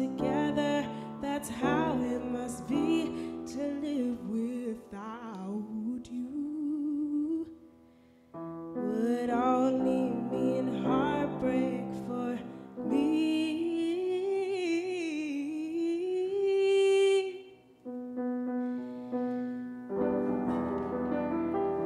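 A woman singing a soul ballad while accompanying herself on a grand piano, her voice sliding through long held runs over steady piano chords, with two brief pauses between phrases.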